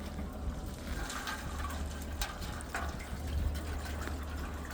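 Water being poured into a chicken waterer, splashing and filling, over a steady low hum.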